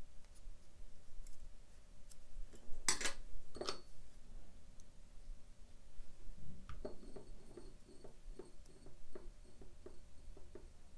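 Metal tweezers set down on a desk, a sharp click or two about three seconds in, then fingertips pressing and rolling a small coiled paper ring: a run of faint, soft ticks and rustles, about three or four a second, as the two paper layers are pressed together to close the air gap.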